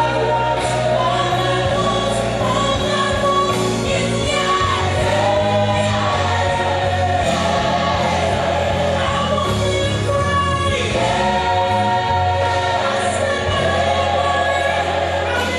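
Gospel music: a choir singing over sustained bass notes, continuous and steady in level.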